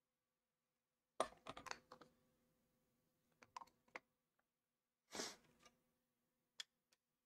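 Scattered light clicks and taps from a soldering iron and small tools being handled on a workbench: a quick cluster about a second in, another around four seconds, a short rustle a little after five seconds, and two single clicks near the end. Quiet overall.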